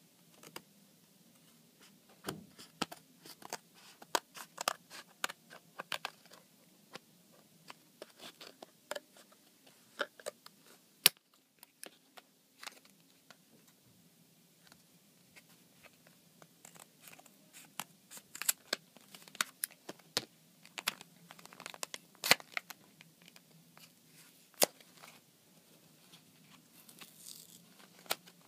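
Scissors snipping through a cardboard-and-plastic blister pack in irregular sharp snips and crackles, the loudest about eleven seconds in; near the end the card and plastic are torn and peeled apart by hand.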